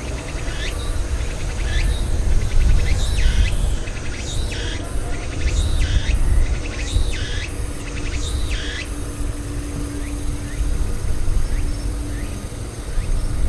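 Low, steady rumble of a taxiing Boeing 777-200's jet engines. Over it, a run of high falling chirps comes roughly once a second and stops about two-thirds of the way through.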